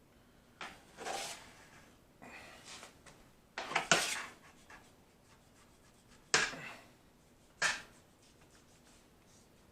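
Kitchen knife cutting and scraping through thick fat on a raw pork butt: about five separate short strokes, the loudest about four seconds in.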